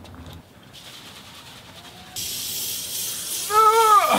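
Aerosol disinfectant spray hissing steadily onto a paper takeout bag, starting about halfway in. Near the end a loud, drawn-out vocal cry rises and then drops in pitch over the hiss.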